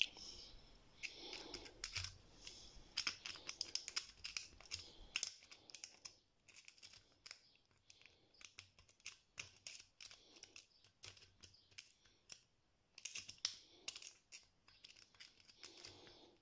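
Faint, irregular metallic clicks and scrapes of a lock pick working the sliders of a slider lock while a tension tool holds strong turning pressure on the plug. This is the sound of the sliders being lifted one by one toward their set positions.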